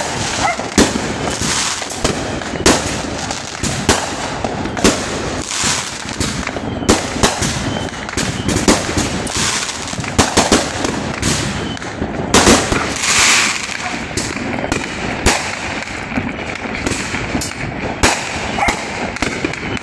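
Consumer aerial fireworks going off without pause: shells bursting in sharp bangs about every second, bunching together around the middle, over a continuous crackle.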